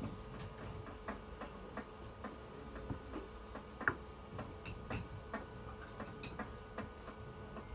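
Irregular light clicks and taps, a few a second, over a faint steady hum; one stronger click comes a little before the fourth second.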